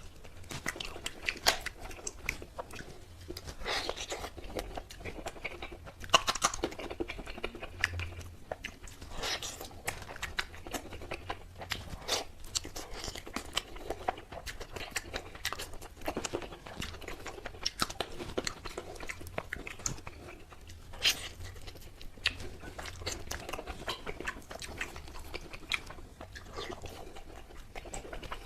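Close-up chewing and biting of tandoori chicken: wet mouth sounds with frequent sharp, irregular clicks and crunches from bites.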